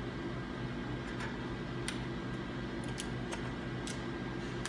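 A few light, irregular clicks of small metal parts being handled and fitted together: a pin going into a handle bracket. A steady low hum runs underneath.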